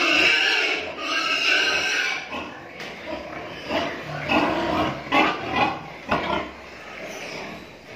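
Pigs squealing loudly and high-pitched for the first two seconds or so, then a run of short grunts, several in quick succession.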